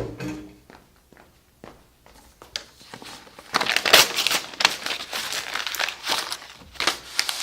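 A school project being crumpled and torn: a run of crinkling, crackling noises that starts about three and a half seconds in, after a mostly quiet stretch with a few small clicks.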